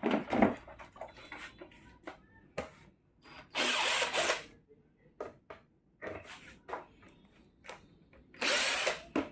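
Power drill run in two bursts of about a second each, unscrewing the panel screws of a washing machine being taken apart for cleaning, with clicks and knocks of parts and tools being handled in between.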